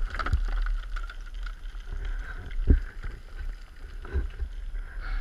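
Steady low rumble picked up by a helmet camera, with a few dull knocks and scrapes as the fallen enduro dirt bike is handled on the slope.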